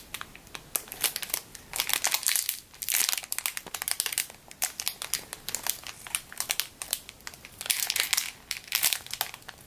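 Crisp clear plastic bag around a squishy toy crinkling as fingers squeeze the toy through it, in repeated bursts of sharp crackles.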